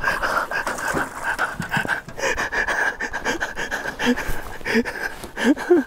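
A man panting and breathing hard after landing a big rainbow trout, with short irregular splashes of water as the fish moves in the landing net beside the boat.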